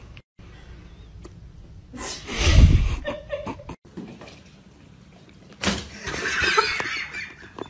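A dull, heavy thump about two and a half seconds in, followed later by a man laughing over the last two seconds.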